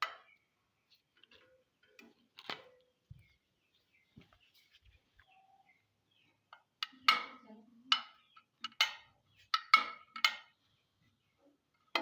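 Irregular clicks and knocks from handling a jammed cassava slicing machine, with no motor running. The clicks are sparse at first, then a quicker run of sharper knocks starts about seven seconds in.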